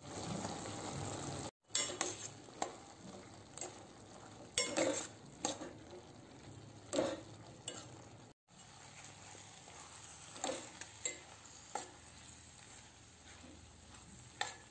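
Spoon stirring soursop palya with grated coconut in a steel pot, with short scrapes and clinks against the pot at irregular intervals over a low sizzle. A steadier, louder hiss fills the first second and a half, and the sound cuts out briefly twice.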